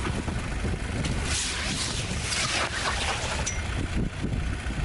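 Game-drive vehicle's engine rumbling steadily as it drives, with wind rushing over the microphone that swells for a couple of seconds about a second in.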